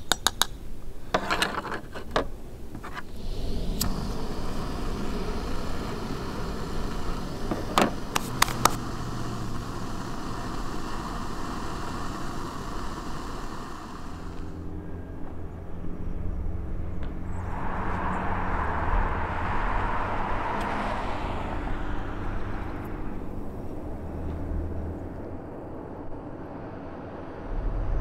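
Clinks of camp cookware, then a steady hiss of a small gas camp stove burner, with a louder rushing stretch past the middle. Near the end a low car rumble comes in.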